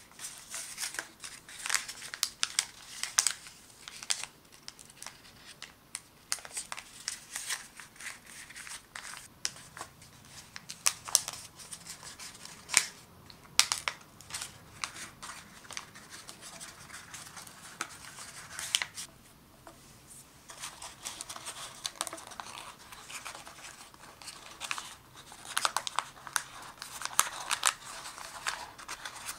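Origami paper being folded and creased by hand: irregular crisp rustles and crinkles, with a brief quieter pause about two-thirds of the way through.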